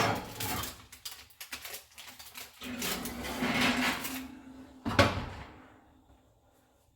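Kitchen clatter from handling a cast iron Dutch oven and its lid at the oven: a burst of knocks and scrapes, a rushing scrape with a low hum in the middle, and a single heavy thump about five seconds in.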